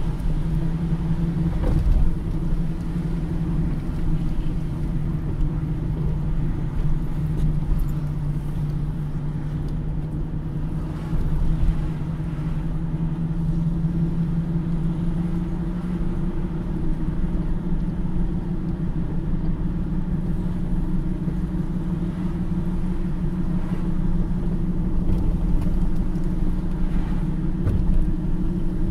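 A car driving, heard from inside the cabin: a steady low engine hum over road rumble, its pitch rising slightly about halfway through.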